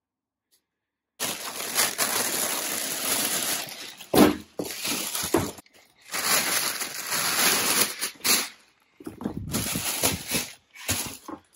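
Plastic packing wrap crinkling and rustling in long bursts as it is handled, starting about a second in, with a sharp knock a little after four seconds.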